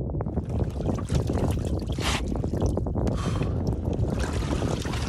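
Wind buffeting the microphone in a snowstorm, a steady low rumble, with water sloshing and splashing in an outdoor ice bath as he shifts, in short bursts of hiss about two and three seconds in.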